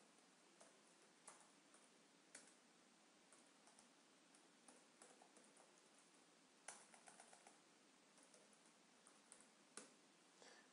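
Faint computer keyboard typing: scattered single keystrokes, with a quick run of keys about seven seconds in.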